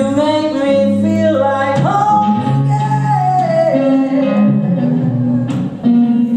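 A woman singing long, held notes that slide between pitches, backed by a hollow-body electric guitar in a live band.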